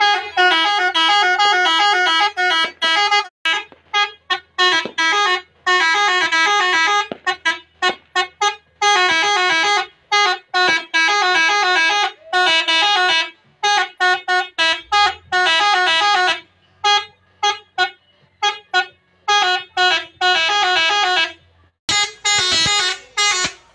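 Telolet horns, the multi-tone musical air horns fitted to Indonesian trucks, sounded in repeated bursts. Each burst plays a quick warbling run of notes and is cut off sharply, over and over.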